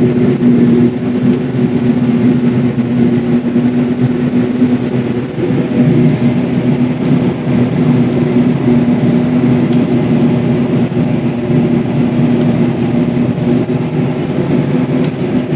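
Claas Jaguar 950 forage harvester running steadily under load while chopping maize for silage: a loud, even engine drone with a constant hum that does not rise or fall.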